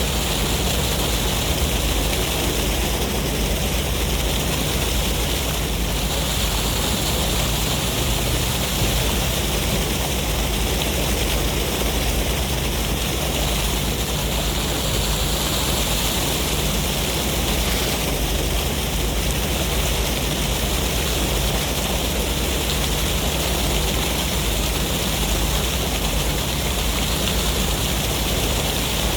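Sea waves washing in with a sea breeze: a steady rush with a deep rumble underneath, swelling and easing every eight to ten seconds.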